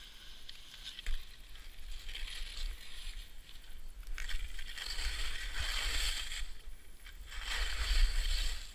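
Skis scraping and sliding over firm, icy snow through a series of turns, the hiss swelling three times with each turn, over a low rumble on the microphone. A sharp knock sounds about a second in.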